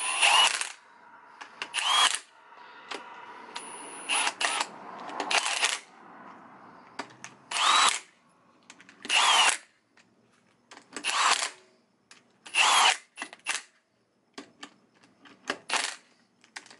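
Milwaukee cordless impact wrench tightening the nuts on a Winters quick change differential's rear gear cover, in about ten short bursts of roughly half a second each, one nut after another, with pauses between.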